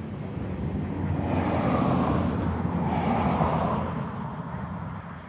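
A car driving past on the street, its tyre and engine noise swelling as it approaches and fading as it moves away.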